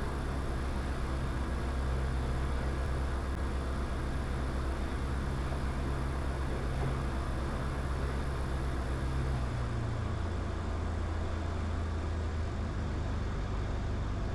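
Cockpit noise of a Diamond DA20 light aircraft in flight: the piston engine and propeller running steadily under a haze of airflow noise, the engine note dropping slightly about ten seconds in.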